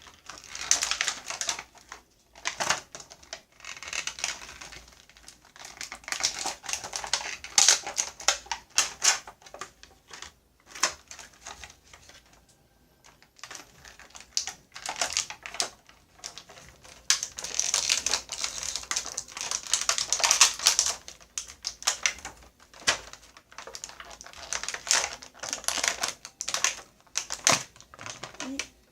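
Plastic and cardboard toy packaging being handled as an action figure is taken out of its box: irregular clicking, crinkling and rustling in bursts, with a short lull near the middle.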